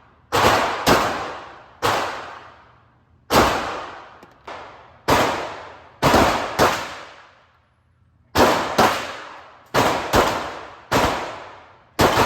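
Handgun shots at an indoor range, about fourteen in uneven spacing, some in quick pairs, with a pause of about a second and a half midway. Each shot rings off in a long echo from the range walls.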